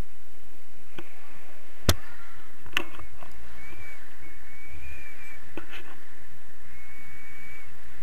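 Steady rush of airflow over an action camera's microphone during a tandem paraglider flight, with a few sharp clicks from the camera pole and harness, the loudest about two seconds in. Faint thin whistling tones come and go in the middle of the stretch.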